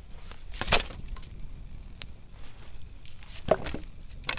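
Dry sticks knocking and cracking as they are laid onto a small campfire: a few sharp cracks, the loudest just under a second in, another strong one about three and a half seconds in.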